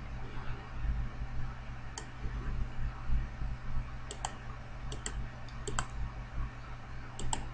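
Computer mouse button clicking: one click, then four quick double clicks spread over the next few seconds, over a low steady hum.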